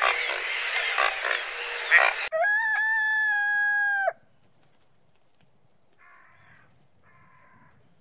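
A loud, dense noise with sharp clicks stops about two seconds in. A rooster then crows once, a single long held call that ends abruptly, followed by two faint short sounds.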